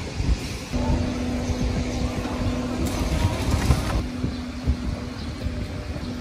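A small engine running steadily with a low hum that sets in about a second in, over a low outdoor rumble.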